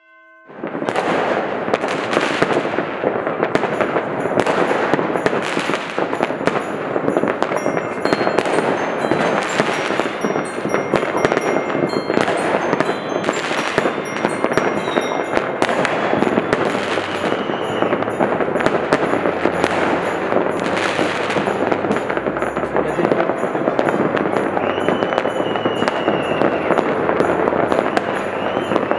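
Many New Year's fireworks and firecrackers going off at once: a dense, unbroken crackle of bangs and pops. It starts about a second in, and a few whistles are heard later on.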